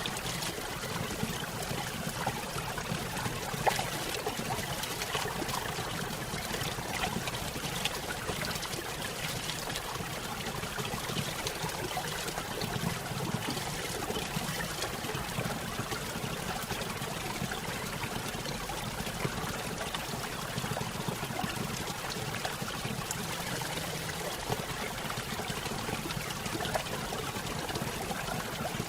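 Small waterfall and river: water splashing and running steadily, a continuous even rush.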